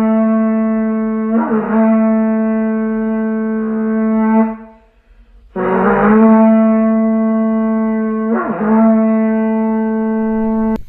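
Intro music: a horn-like wind instrument blowing long, steady notes on one low pitch, each beginning with a breathy rasp. The notes break off briefly about halfway through, then resume.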